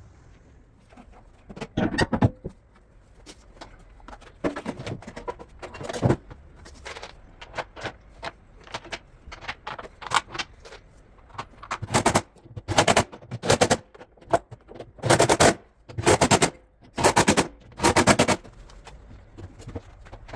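Power impact driver run in short bursts of fast rattling hammering, driving or loosening screws during washing-machine disassembly. The bursts are scattered at first, then come six times in quick succession in the second half, with lighter clatter of parts between them.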